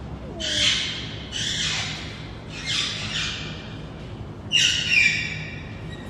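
An albino African grey parrot giving a series of harsh, raspy screeches, four in about five seconds. The last screech is the loudest and more ringing.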